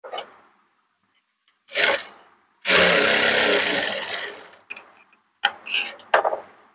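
Sewing machine running a short seam for about two seconds, starting a little before the middle and tailing off. Several shorter bursts of sound come before and after it.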